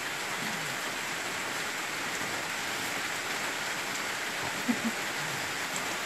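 Steady rain falling on forest leaves and a river, an even hiss.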